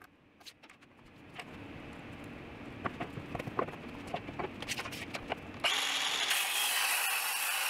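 A Milwaukee Fuel brushless cordless circular saw, after some lower steady noise and handling clicks, cuts into a solid oak panel along a cutting guide about five and a half seconds in, with a loud, steady cutting noise.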